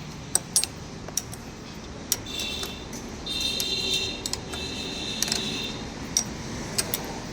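Scattered sharp metallic clicks and clinks of spanners and steel parts being handled during work on a motorcycle's steering head, with a faint high-pitched whine about two seconds in that lasts around three seconds.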